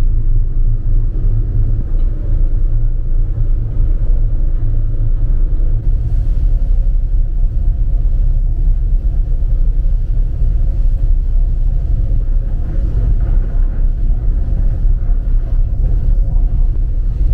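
Steady low rumble of a passenger ferry's engines under way.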